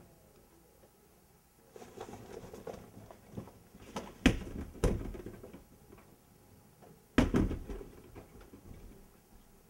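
Two people scuffling: shuffling and rustling of clothes and feet, with three sharp hits or thumps, two close together near the middle and one about seven seconds in, the loudest sounds.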